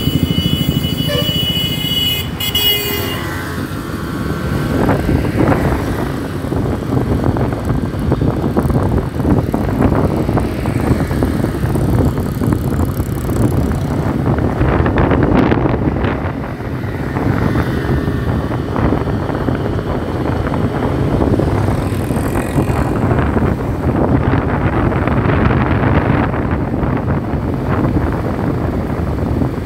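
Motorcycle engine running steadily as it rides through city traffic, heard from a phone mounted on the rider's helmet, with road and wind noise. A vehicle horn sounds for the first couple of seconds.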